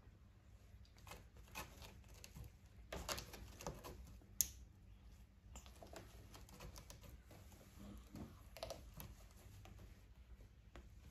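Faint scratching and light ticking of a cat's claws and a furry wand toy rubbing against a sisal-rope scratching post, with one sharp click about four seconds in.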